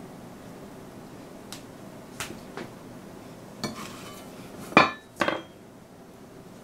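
Stainless steel bench scraper and fork clacking on the work surface: a few light taps, then two loud, sharp metallic clacks close together about five seconds in.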